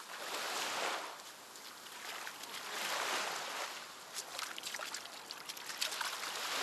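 Water washing against a rubber boat in slow swells, rising and falling about every three seconds, with small splashes and ticks in the middle.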